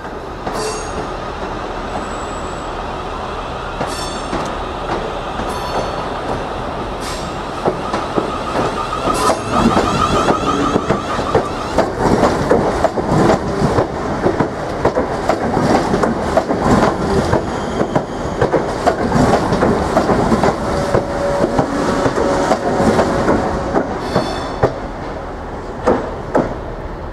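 Siemens Class 350 Desiro electric multiple unit running along the platform, its wheels clattering rhythmically over the rail joints. The clatter grows louder about a third of the way in and fades near the end as the train clears the platform.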